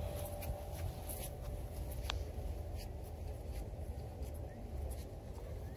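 Faint ambience of an open-air market, with a steady low rumble and scratchy rustling on the microphone and a few light clicks.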